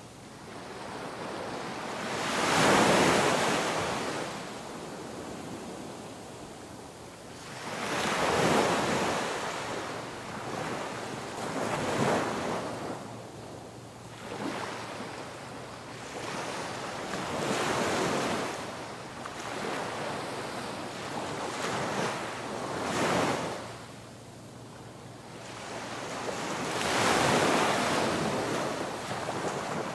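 Ocean waves washing onto a shore, each surge swelling and fading every four to six seconds, the loudest about three seconds in and near the end.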